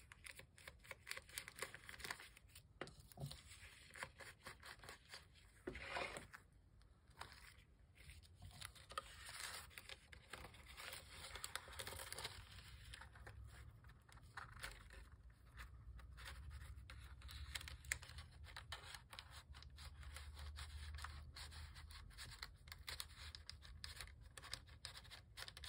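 Faint scratchy rubbing and rustling of paper: an ink blending tool is swiped around the edges of a brown paper bag, and the bag and a cardstock insert are handled and slid about.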